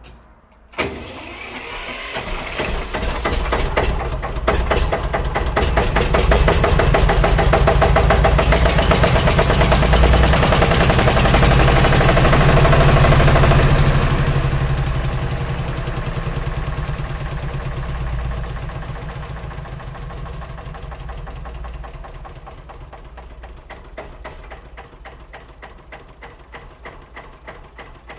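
A tractor engine starts abruptly about a second in and runs with a fast, even beat. It grows louder over the next several seconds, then slowly fades toward the end.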